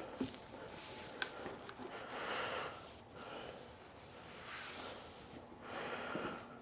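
Faint swishes of a cloth towel being wiped over the planer's metal surfaces in a few separate strokes, with a couple of light clicks.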